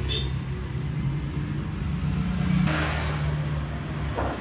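A steady low mechanical hum, like an engine running. A short rustling hiss cuts in about two and a half seconds in.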